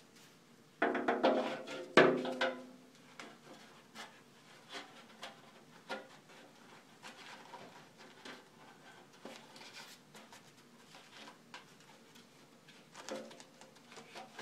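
Large sheet-metal ring of a Powermatic 75 dust collector knocked and turned by hand, ringing loudly with two knocks about one and two seconds in. After that comes a run of light taps and clicks as the rubber gasket strip along its rim is handled.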